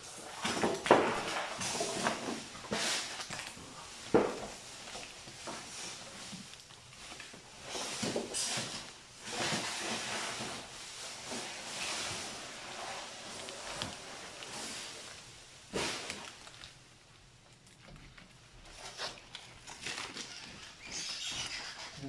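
Packing tape being peeled and plastic protective sheeting rustling and crinkling as a new refrigerator is unwrapped, in irregular bursts with a few sharp knocks.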